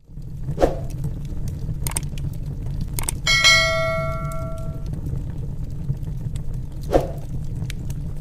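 A bell chime rings once about three seconds in and dies away over nearly two seconds, the notification ding of a subscribe-button animation. Under it, a wood fire crackles with a steady low rumble and a few sharp pops.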